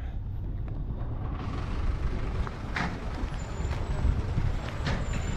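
Buses and road traffic: a steady low engine rumble, with two short hissing bursts, one about three seconds in and one near the end.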